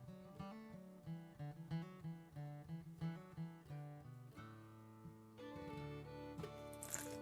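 Background music led by plucked acoustic guitar, fuller from about halfway through.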